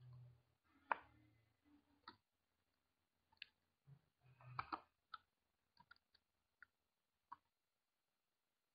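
Faint computer keyboard keystrokes: a dozen or so separate clicks at uneven intervals, a few bunched together near the middle.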